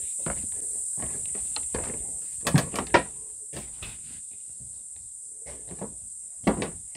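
Steady high-pitched chorus of insects, with footsteps knocking on the wooden plank floor of a bush hide. The loudest knocks are a few clunks about two and a half to three seconds in, and another about six and a half seconds in.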